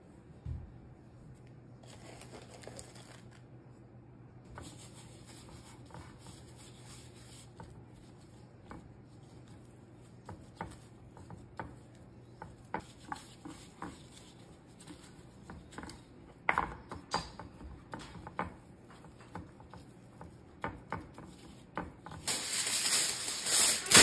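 A gloved hand rubs and pats seasoning into raw pork ribs in a glass baking dish, making scattered soft ticks and rubbing sounds, with a low steady hum in the first half. About two seconds before the end, a sheet of aluminium foil is handled and crinkled loudly as it is spread over the dish, the loudest sound.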